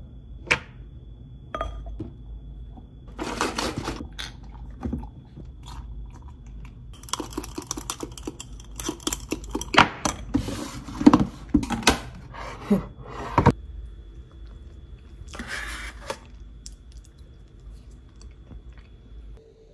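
Protein powder being scooped from a plastic tub into a glass tumbler and stirred in with a metal spoon: scooping and tapping, then a dense run of quick scrapes and clinks of the spoon against the glass in the middle.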